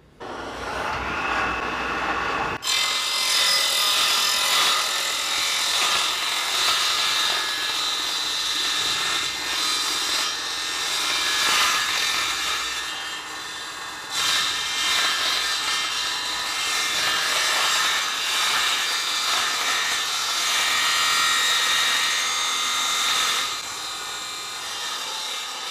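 Homemade table saw starting up, then its blade cutting a long kerf through the Eucatex hardboard base of a crosscut sled as the sled is pushed slowly forward. The cut starts about two and a half seconds in; near the end the sound drops as the cut stops at the marked line.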